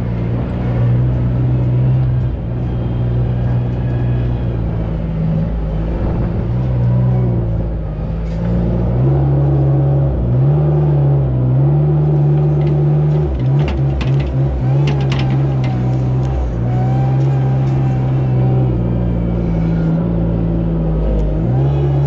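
Compact wheel loader's engine running under load, its revs rising and falling repeatedly as it drives and works the fork. A short cluster of knocks comes partway through.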